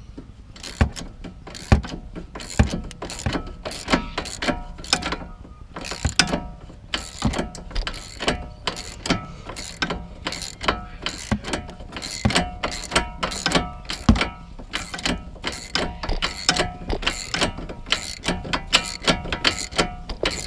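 Hand socket ratchet clicking in many short strokes as the 18 mm nut on a sway bar link is slowly backed off, the link stud held still with a T40 Torx bit. The work is slow going.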